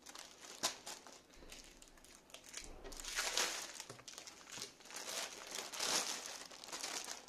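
Clear plastic packaging bags crinkling as they are handled, in irregular bursts, loudest about three seconds in and again around six seconds.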